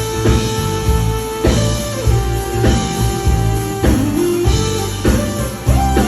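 A live full band playing a pop-rock song, with drums, bass and guitar. A sustained lead melody of long held notes slides between pitches over the beat.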